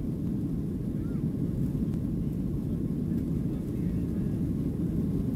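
Steady low rumble heard inside the cabin of a Boeing 737-700 taxiing, its CFM56-7B engines running at taxi thrust.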